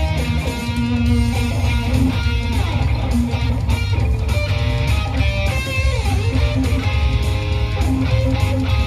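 Electric guitar playing an improvised lead through an EVH 5150 combo amp over a rock backing track with drums and bass: running melodic lines with a few string bends, in A Mixolydian.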